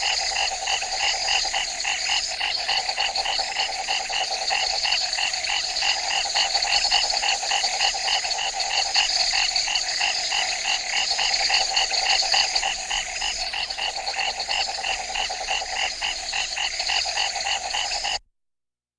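Nighttime chorus of many frogs calling together in fast, overlapping pulsed croaks, with a steady high-pitched trill behind them. The whole chorus cuts off abruptly near the end.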